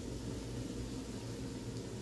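Steady faint hiss over a low hum, with no knocks or stirring.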